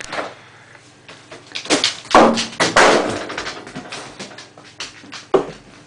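A spring-loaded dog door knocking and clattering as a dog pushes through it and the spring pulls it shut: a run of knocks loudest about two seconds in, and one more bang near the end.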